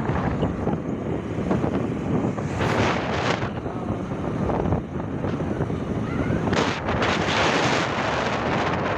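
Wind buffeting the microphone: a steady rushing noise that surges about three seconds in and again near seven seconds.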